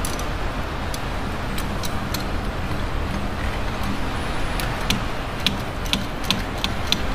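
A steel wrench clinking against bolts and metal under the hood, a handful of sharp irregular clicks in the second half, over a steady low background rumble.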